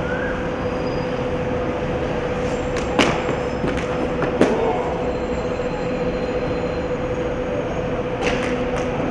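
Steady mechanical drone with a constant hum, broken by sharp clacks about three seconds in, again a second and a half later, and near the end.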